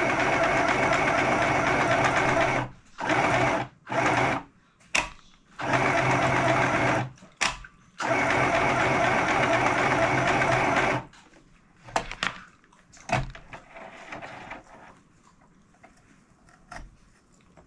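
Small electric sewing machine stitching in several steady runs with short stops and brief bursts in between. It stops about 11 seconds in, followed by a few faint clicks.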